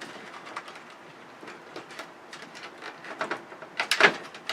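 Parts of a television being handled during dismantling: scattered light clicks and rattles of plastic and metal, busier towards the end, with a sharper clack about four seconds in.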